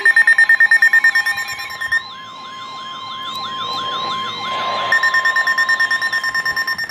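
Electronic emergency alert tones for a severe thunderstorm warning. A loud, rapid beeping gives way about two seconds in to a repeating warbling, siren-like sweep, with a steady tone held underneath, and the rapid beeping returns near the end.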